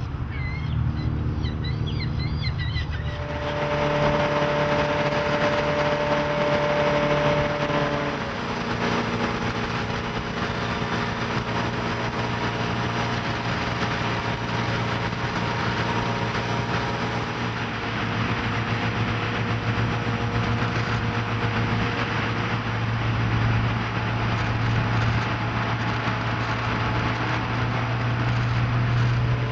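Volvo Penta 5.0 GI V8 inboard engine driving a cruiser on the water, picking up speed about three seconds in, under a steady rush of water and wind. The engine note shifts to a new steady pitch about eight seconds in.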